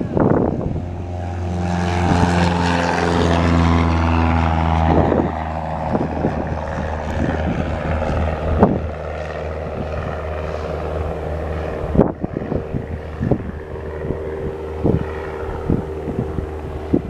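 A Beechcraft B200 Super King Air's twin Pratt & Whitney PT6A turboprops and propellers running with a steady drone. The drone swells over the first couple of seconds and eases off about five seconds in. Wind gusts buffet the microphone with sudden thumps.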